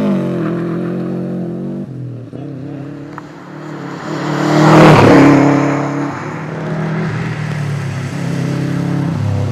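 Subaru WRX STI's turbocharged flat-four engine running hard, its pitch climbing and dropping as it revs and changes gear. A loud rushing swell builds about four seconds in, peaks near the middle and fades again.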